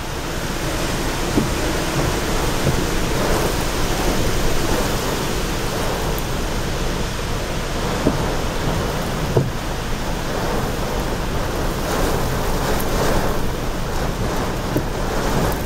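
Heavy hurricane rain and strong wind: a loud, steady, dense rush with a few brief sharp taps.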